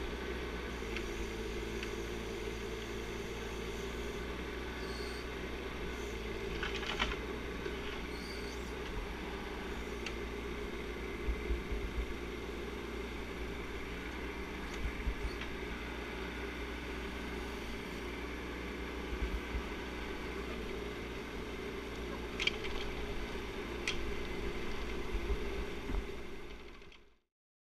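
Bobcat 418 mini excavator's diesel engine running steadily while the machine tracks along a dirt trail, with occasional short clanks and rattles. The sound fades out near the end.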